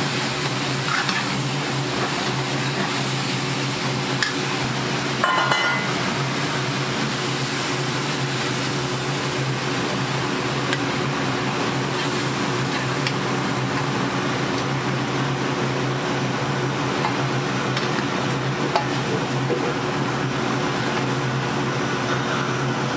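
Food sizzling steadily over heat, with a steady low hum underneath and a brief clink about five seconds in.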